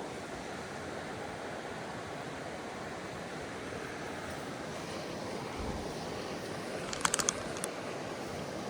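Mountain creek water running steadily, with a quick cluster of sharp clicks about seven seconds in.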